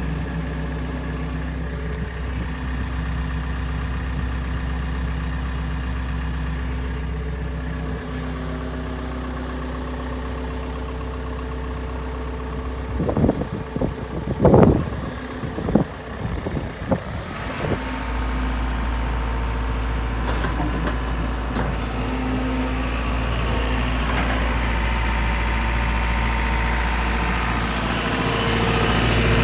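JCB JS130LC tracked excavator's diesel engine running steadily at idle. A few short, loud rising-and-falling squeal-like sounds come about halfway through, and the engine note builds slightly near the end.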